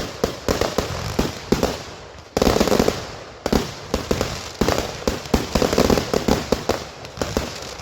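Fireworks going off: a dense, irregular run of crackling pops and bangs, growing suddenly louder about two and a half seconds in.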